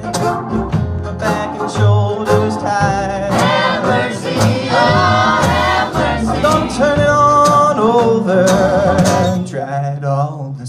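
Live string band playing a blues tune on fiddles, acoustic guitar, cello and upright bass, with a voice singing over them.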